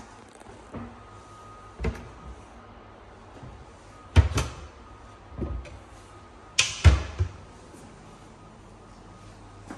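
A few knocks and thumps from kitchen fittings being handled, the two loudest about four and seven seconds in.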